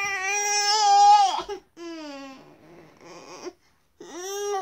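Baby boy crying in protest at being told no: one long, loud wail held for about a second and a half, then shorter falling cries, and another cry rising near the end.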